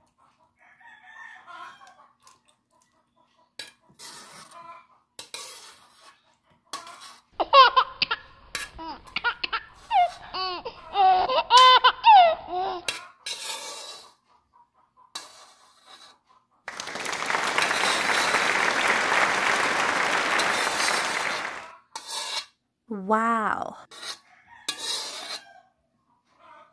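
Food scraped and slid from a metal pan onto a ceramic plate, with scattered clinks and scrapes. A high-pitched voice squeals and laughs about a third of the way in, and again briefly near the end. A steady hiss runs for about five seconds past the middle.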